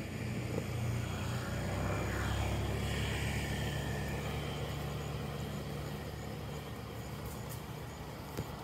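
A motor vehicle's engine running off-screen: a low, steady hum that swells about two to three seconds in, as if passing close by, then slowly fades.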